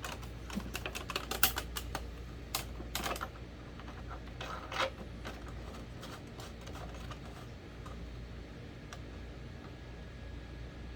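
Light clicks and taps of plastic fan parts being handled and fitted together during a repair, thickest in the first five seconds, then thinning to an occasional click over a faint steady low hum.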